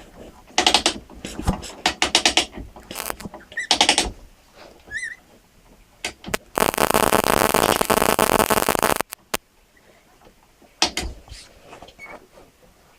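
Clicks, rattles and ratchet-like clatter of tools and metal parts being handled while a machine is being dismantled, with a steady mechanical whirring for about two and a half seconds in the middle.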